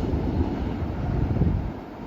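Norfolk Southern manifest freight train rolling past, a loud low rumble of wheels and cars that dies away near the end.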